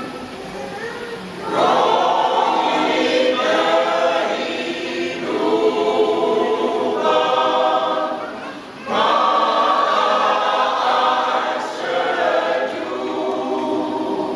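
Elderly mixed church choir singing in several parts. The sung phrases come in full about a second and a half in, break briefly at about the two-thirds mark, then swell again.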